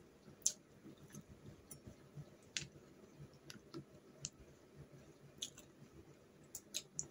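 Eating sounds from cooked snails being picked from their shells and eaten by hand: about a dozen short, sharp clicks and smacks at irregular intervals, the loudest about half a second in.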